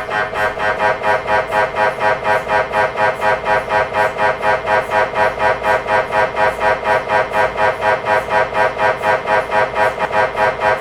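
MRI scanner's gradient coils buzzing in a fast, even rhythm of about four pulses a second.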